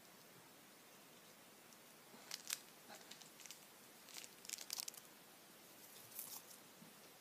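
Faint, irregular crunching and crackling of small candy-coated chocolates being eaten and their plastic candy-pen dispenser being handled, starting about two seconds in and dying away near the end.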